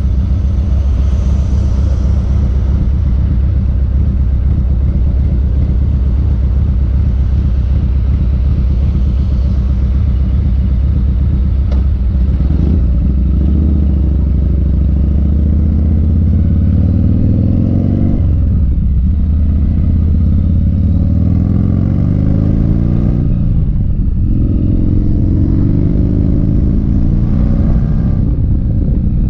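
1985 Harley-Davidson FXRT's V-twin engine idling steadily at a stop. About halfway through it pulls away and accelerates up through the gears, the pitch climbing and dropping back at each of two shifts.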